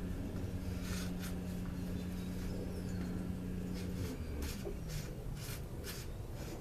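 A steady motor hum that winds down, falling in pitch, about four seconds in, while small metal engine parts click and clink on a workbench, about a dozen light knocks.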